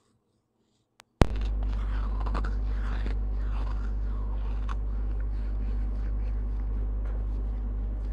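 Silence broken by a click about a second in, then a steady low electrical hum picked up by the clip-on lavalier microphone, with faint scraping and handling noises over it during the first few seconds.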